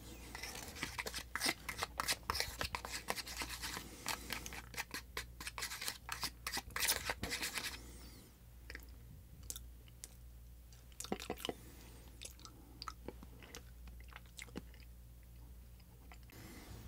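Small plastic spoon stirring and scraping a Popin Cookin mixture in its plastic tray: dense clicking and scraping for most of the first half, then sparser, quieter taps and scrapes.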